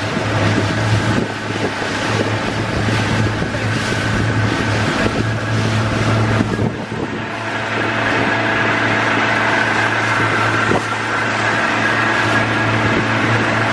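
A 60-horsepower outboard motor runs at a steady cruising speed, pushing a small open boat, with a constant hum. Water rushes past the hull and wind buffets the microphone.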